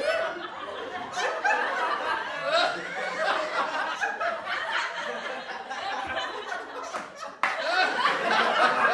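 A group of people laughing and chuckling together, several voices overlapping. About seven seconds in the sound cuts off abruptly and comes back louder.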